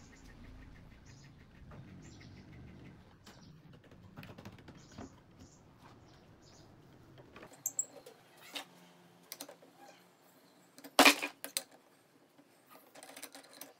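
Pine frame pieces of a wooden folding chair knocking and clicking as they are handled and fitted. There is one sharp, much louder knock about eleven seconds in. Near the end comes a short run of rapid metal ticks as a wrench works a pivot bolt.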